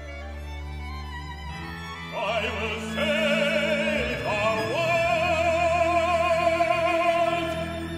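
Operatic solo singing with wide vibrato over an orchestra with strings. The voice rises through a phrase, then glides up into a long held note that lasts to the end.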